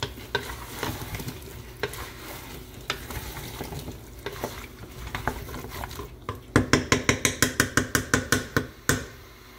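Wooden spatula stirring turnip chunks through sizzling masala in an aluminium pressure cooker, knocking and scraping against the pot. Near the end the strokes turn into a fast, even run of about eight sharp scrapes a second.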